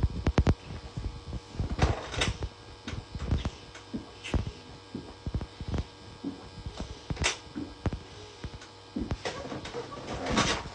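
Water being gulped from a bottle: a run of irregular, dull swallowing knocks, roughly one a second, over a steady electrical hum.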